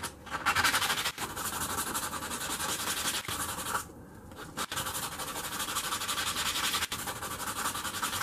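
Stainless steel bolt head rubbed by hand on 120-grit sandpaper, making a steady gritty scratching. There are short pauses just after the start and about four seconds in.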